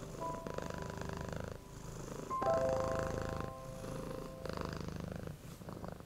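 Soft background music of long held melody notes over a steady low rumble.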